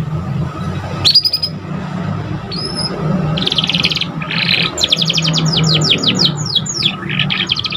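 Young domestic canary singing a practice song: a sharp rising chirp, a short whistled note and a buzzy trill, then a fast run of quick downward-sweeping notes at about eight a second. A steady low hum sits underneath.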